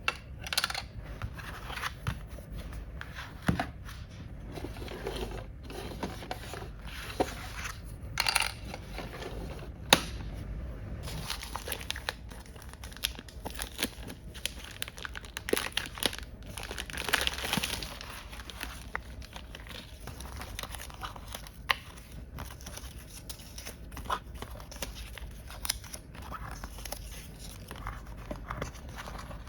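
Packaging being unwrapped by hand: wrapping tearing and crinkling, with scattered light clicks and taps of small parts being handled.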